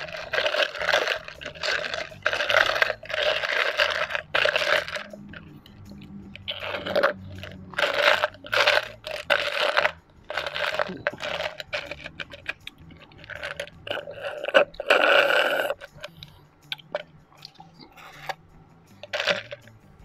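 Ice cubes being crunched and chewed in repeated bouts, about a second each, with ice shifting in a tipped plastic cup.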